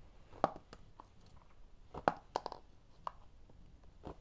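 A few light, sharp knocks and clicks at uneven intervals, about six in four seconds, with a quick pair close together about halfway through.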